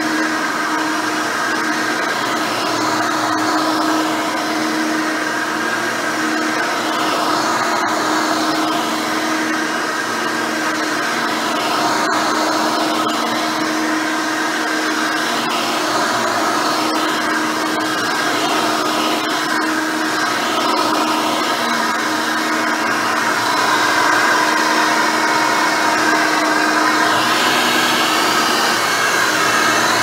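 Hoover Elite 600 upright vacuum with a 6-amp motor and nine-blade fan, running steadily on carpet as a constant motor hum and whine, with a few faint ticks along the way.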